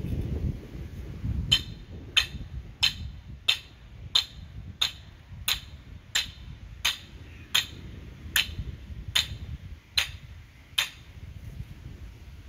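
A regular series of about fifteen short, sharp taps, roughly one every two-thirds of a second, slowing a little near the end.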